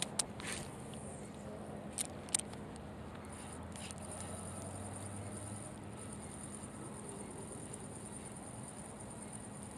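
Spinning reel at work during the retrieve of an inline spinner: a few sharp clicks in the first couple of seconds, then a faint, steady high whir as the handle is cranked.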